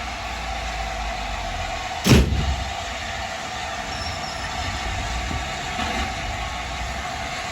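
Steam locomotive giving off a steady hiss of escaping steam, with a single loud bang about two seconds in.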